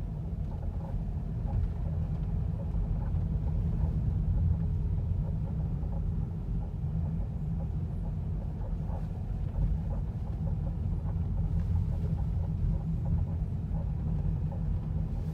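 VW Alltrack on the move: a steady low rumble of road and engine noise, with faint, irregular short creaks from the suspension. The creaking began a few months into ownership of the new car.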